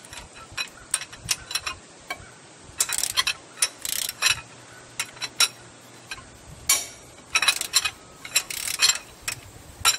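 Socket ratchet clicking in several short, irregular runs as 15 mm injector rocker-shaft bolts on a Cummins ISX engine are backed out after being broken loose.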